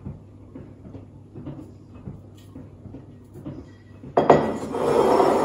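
Spatula scraping raspberry coulis out of a bowl onto a cheesecake: light taps and scrapes, then a louder scrape lasting about a second near the end.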